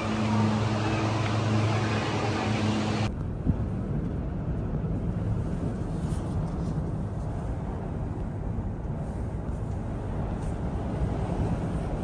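Steady mechanical hum and hiss of cable car station machinery, with two low held tones. It cuts off abruptly about three seconds in and gives way to a low, steady rumble of wind inside a gondola riding along the cable.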